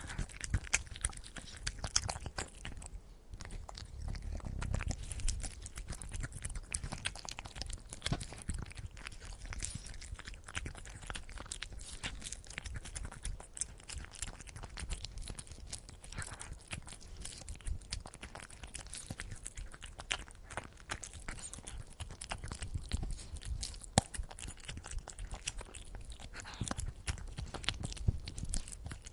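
Cat eating wet food: rapid wet chewing and lip-smacking clicks, with a low purr underneath that swells and fades.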